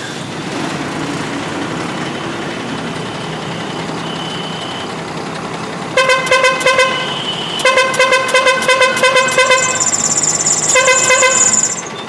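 TATA truck's pressure horn sounding about six seconds in as rapid runs of short, pulsing notes in three bursts, a tune-style horn. Before it, the truck's engine is idling.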